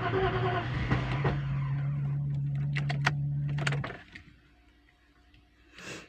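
Mercedes 4.2-litre M119 V8 engine running with several sharp clicks, then stopping abruptly about four seconds in. The owner says this engine is knocking.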